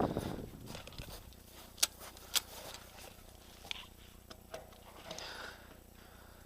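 Two sharp clicks about half a second apart, then a few fainter ticks and a brief rustle.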